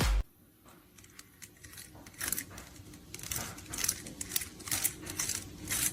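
Dance music cuts off abruptly at the start. Then come irregular light clicks and taps with short rustles, more frequent from about two seconds in.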